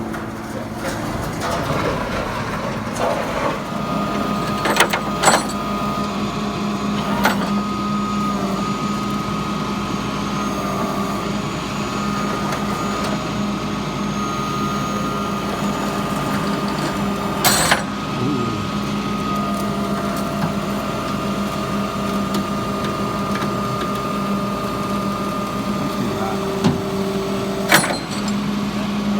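Heavy container-delivery truck's engine running steadily with a steady whine, while it maneuvers a 40-foot steel shipping container into place. Sharp metallic knocks come a few times, about five seconds in, around seventeen seconds and near the end.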